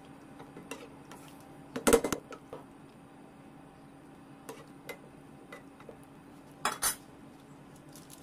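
Metal utensils stirring pork pieces in sauce in a metal wok: light scattered taps and scrapes against the pan, with two louder bursts of clanking, about two seconds in and again about seven seconds in.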